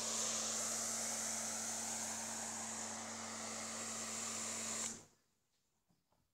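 Pressure washer running while spraying snow foam: a steady motor hum under a loud hiss, both cutting off suddenly about five seconds in.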